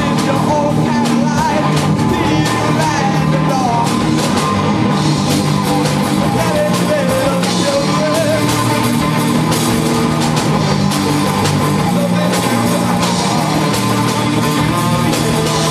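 Rock band playing live: electric guitar and drum kit with crashing cymbals, loud and steady throughout.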